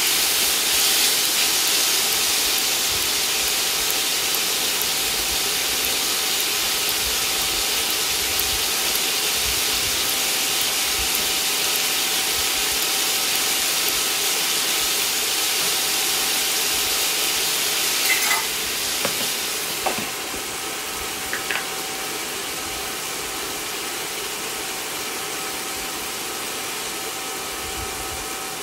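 Chayote and meat sizzling in a hot wok, stirred with a spatula. Around eighteen to twenty-one seconds in there are a few clinks as a glass lid goes on, and after that the sizzling is steadier and quieter.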